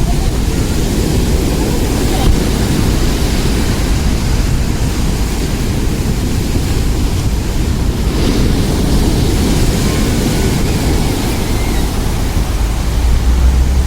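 Large storm waves stirred up by a typhoon breaking on a pebble beach, with strong wind rumbling on the microphone.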